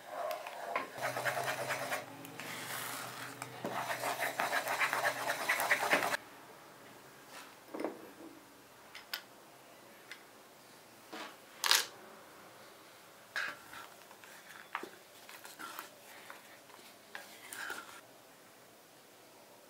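Wooden spatula stirring and scraping thick, cooking custard around a saucepan, over a steady low hum; it stops abruptly about six seconds in. Then a few light knocks and taps follow, the loudest about twelve seconds in.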